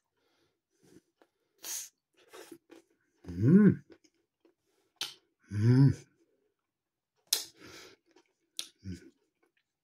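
A man eating a chocolate-coated ice cream lolly: soft mouth and chewing noises and short breaths through the nose, with two brief hummed "mm" sounds about three and a half and six seconds in.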